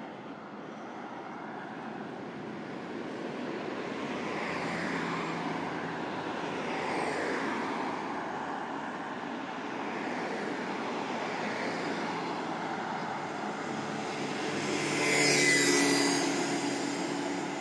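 Road traffic: several vehicles pass one after another, each swelling and fading. The loudest passes close about fifteen seconds in.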